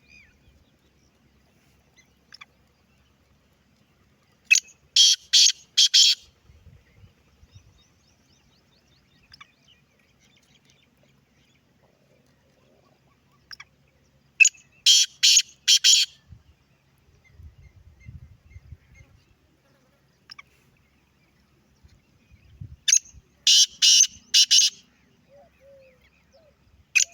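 Black francolin calling: three loud, grating phrases of about five quick notes each, roughly nine seconds apart, with a fourth phrase starting at the very end.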